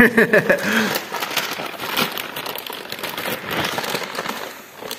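A clear plastic bag crinkling and rustling as it is handled and opened by hand, with irregular small crackles throughout.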